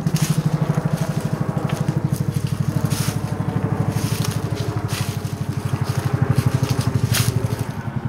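Footsteps crunching irregularly on dry leaves and twigs in an overgrown passage, over a steady low hum with a fast pulse.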